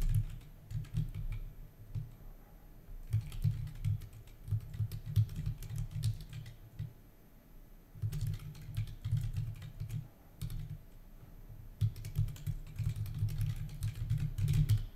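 Typing on a computer keyboard: bursts of quick keystrokes separated by short pauses.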